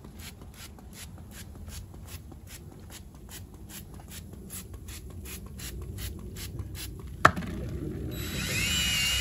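Hand trigger spray bottle pumped rapidly, about three short sprays a second, misting wheel cleaner onto a tyre. Near the end a sharp knock, then a DeWalt cordless drill starts, its motor whine rising and falling as the spinning brush attachment scrubs the tyre.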